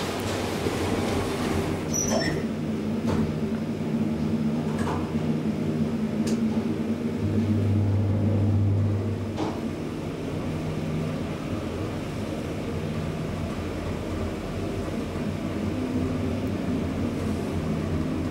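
Schindler hydraulic elevator's pump motor running with a steady low hum as the car rises, with a few sharp clicks and knocks in the first half.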